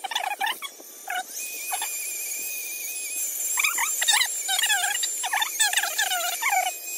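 Dremel rotary tool with an abrasive disc grinding old gasket material off a carburetor mounting pad on an intake manifold: a steady high motor whine with many short chirping squeals that bend in pitch as the disc bites, thickest in the second half.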